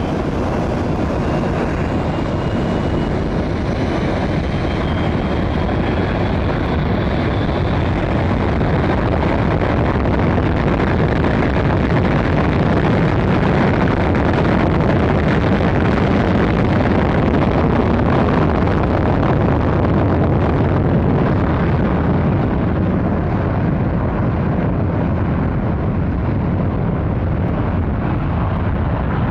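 McDonnell Douglas MD-80's two rear-mounted Pratt & Whitney JT8D turbofans run up to takeoff thrust for the takeoff roll. The loud, steady jet-blast rush builds to its peak about halfway through and eases slightly as the jet rolls away down the runway.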